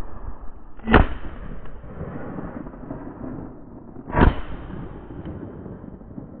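Two shots from a 20-gauge F.A.I.R. Premier over-and-under shotgun, about three seconds apart: one barrel and then the other fired at a flock of pigeons.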